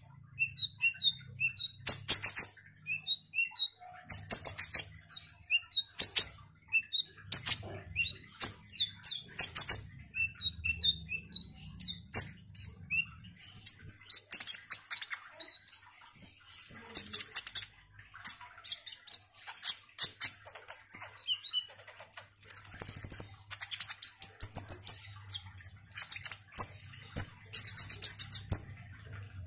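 Male kolibri ninja sunbird singing a fast, high-pitched, chattering song of chirps, twitters and trills in phrases with short pauses.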